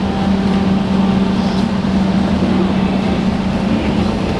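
Steady low hum of a Singapore MRT train standing at the platform with its doors open.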